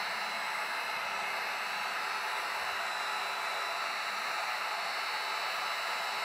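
Electric heat gun running steadily: a blowing fan hiss with a faint steady whine in it, the hot air being used to shrink a printed heat-shrink wrap onto a battery cell.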